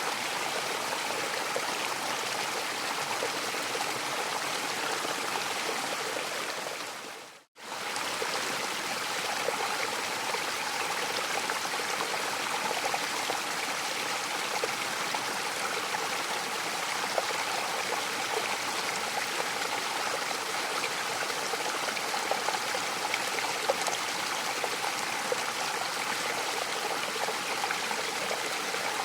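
Mountain waterfall: a steady rush of falling water. About seven seconds in it fades out to a moment of silence and comes straight back.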